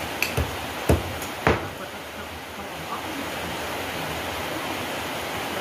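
Steady hiss of rain falling, with a few sharp clicks and knocks of dishes and utensils in the first second and a half.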